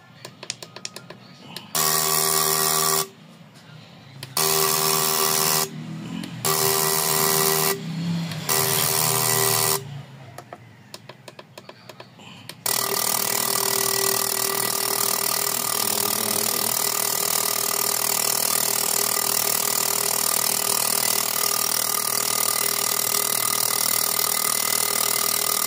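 Fuel injector tester-cleaner machine running. It sprays the injectors in four short bursts of about a second each, then runs steadily through the second half as a loud hiss with a steady hum. The injectors are being checked for uneven spray on an engine that misfires and lacks power.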